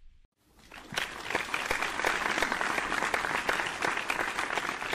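Crowd applause: many hands clapping. It swells in within about a second after a brief silence, then holds steady.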